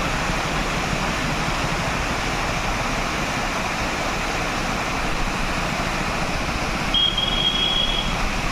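Waterfall at the dam, its water rushing in a steady, even roar. A brief thin high tone sounds about seven seconds in.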